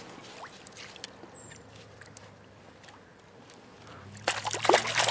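Water splashing as a hooked crappie is netted beside a kayak. Quiet lapping gives way about four seconds in to a loud burst of splashing that lasts about a second.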